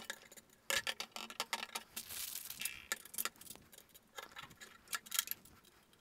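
Small metal screws and nuts clicking and tapping as they are handled, and an aluminium extrusion profile set down against a plate, with a brief scrape about two seconds in.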